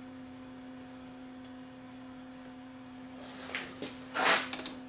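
A steady electrical hum from the workbench, then from about three seconds in rustling and a few light clicks as test leads and a scope probe are handled, loudest just after four seconds in.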